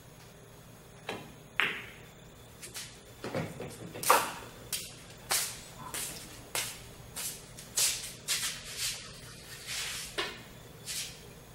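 Pool cue tip striking the cue ball about a second in, followed half a second later by a sharp, ringing click of the cue ball hitting an object ball on a pool table. Then a run of sharp knocks and taps, roughly one every half second.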